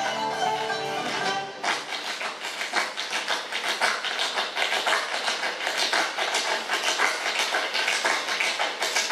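Live traditional dance music stops about one and a half seconds in. It gives way to a rapid, uneven clatter of taps: dancers' heeled shoes beating percussive steps on the stage floor.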